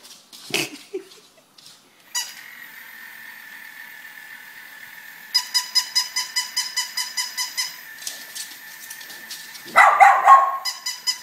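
Battery-operated fluffy toy robot dog switched on: a few clicks and knocks, then a steady high electronic tone from about two seconds in, turning into a regular electronic pulsing about four times a second as it goes. Near the end a louder short bark-like sound breaks in.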